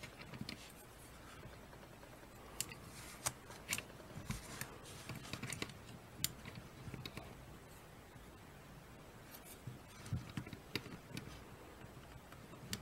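Faint, scattered small clicks and scratches of a wooden toothpick prodding a thin hammer shim and the small steel parts inside a Ruger Super Redhawk Alaskan revolver frame, with a few soft knocks of the gun being handled. The clicks come in two clusters, a few seconds in and again near the end.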